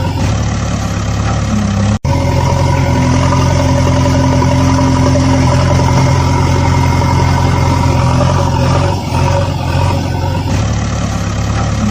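Engine running steadily at idle with a low hum. It cuts out for an instant about two seconds in, then carries on unchanged.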